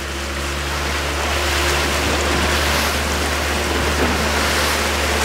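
Small fishing boat under way, its motor running at a steady cruising speed with a constant low drone. Water rushes past the hull underneath.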